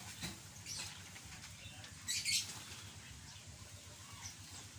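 Birds chirping in the background: scattered short high-pitched chirps, with a brief louder high-pitched burst a little after two seconds in.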